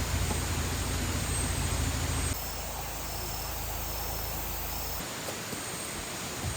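Outdoor ambience of faint, high, repeating insect chirps over a steady hiss. A low rumble under it stops abruptly a little over two seconds in, and the background changes abruptly again about five seconds in.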